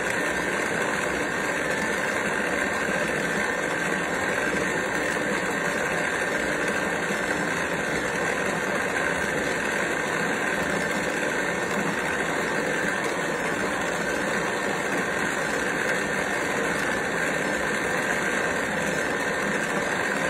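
Stand mixer motor running steadily with a faint high whine, its dough hook turning flour into water, yeast and oil.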